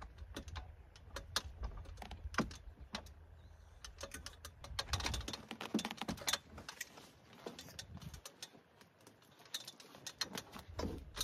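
Scattered clicks, taps and rustles from handling a rooftop tent's pole and canvas while it is slotted into place. Wind rumbles on the microphone for the first five seconds or so.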